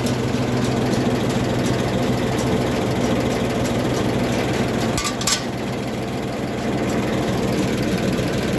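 Ford 4000 tractor's three-cylinder engine idling steadily, with a short metallic clink about five seconds in.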